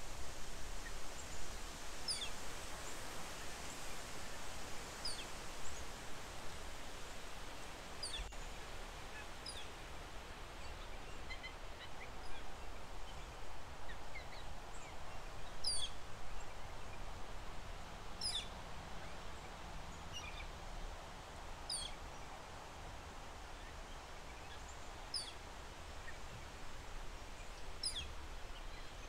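Wind blowing through leaves as a steady rustling hiss, with short high, falling bird chirps every two to three seconds.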